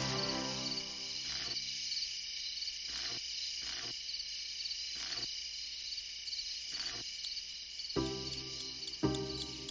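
Crickets chirping steadily in a fast, even pulse. Sustained musical tones fade out in the first second or so and strike again twice near the end, with a few soft clicks in between.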